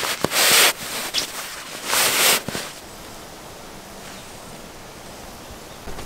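Padded sleeping bag fabric being handled: two brief rustling swishes about a second and a half apart, followed by a steady low outdoor hush.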